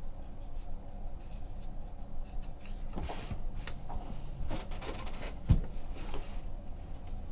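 Trading cards and their packaging being handled on a table: soft rustles and clicks through the middle, with one light knock a little after halfway, over a low steady hum.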